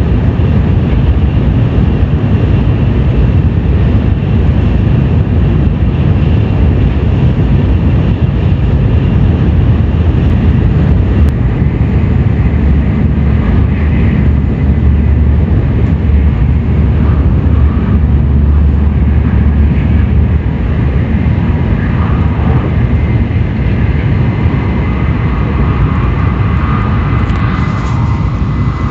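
Tokaido Shinkansen train running at speed, a loud steady rumble of wheels and air.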